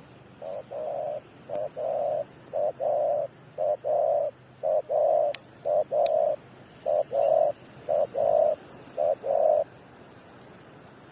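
A bird's two-note call, a short note then a longer one, repeated nine times at about one call a second.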